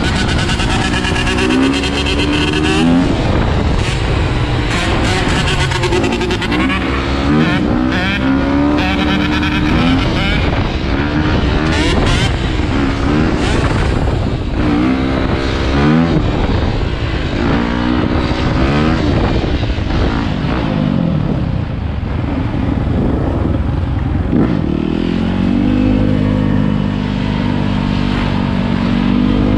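Dirt bike engine revving, its pitch rising and falling over and over as the rider works the throttle, with more motorcycle engines close by. The pitch holds steadier near the end.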